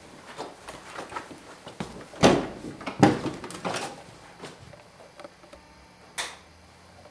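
Footsteps on a wooden floor and a door being handled, with two loud thuds a little after two and three seconds in and a sharper knock near the end.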